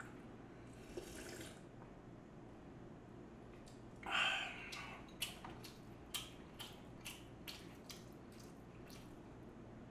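Noodle-soup broth sipped from a bowl. About four seconds in comes a loud breathy exhale after the drink, followed by a run of small mouth clicks and smacks, about two a second.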